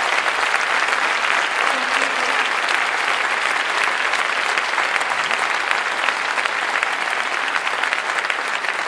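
Large audience applauding steadily, a dense patter of many hands clapping that eases slightly near the end.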